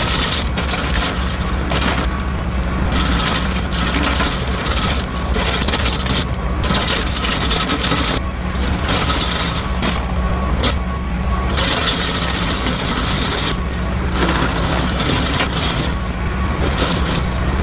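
Heavy diesel machinery running steadily, with scraping and cracking of wood coming and going over the engine.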